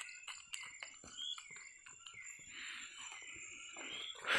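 Night rainforest insects calling: a steady high-pitched tone with a wavering chirring band beneath it, over irregular small clicks and crunches of footsteps on the wet forest floor.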